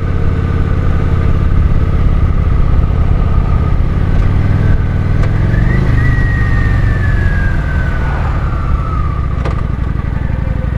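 Kawasaki Vulcan 900's V-twin engine running while the motorcycle is ridden with its sidecar attached. The engine picks up revs about halfway through and then eases back. A thin high whine slides down in pitch just after the revs peak.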